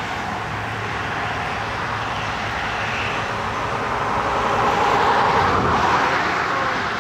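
Steady rush of river water pouring through the rapids at a mill, swelling slightly about five seconds in.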